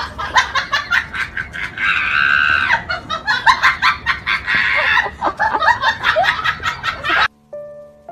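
A person laughing hard in rapid bursts, with a drawn-out high squeal about two seconds in; the laughter cuts off abruptly about seven seconds in.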